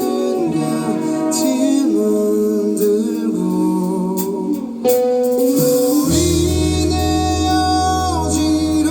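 A live band playing, with a voice singing held, gliding notes over guitar. About five seconds in the music gets louder, and a second later a deep bass comes in under it.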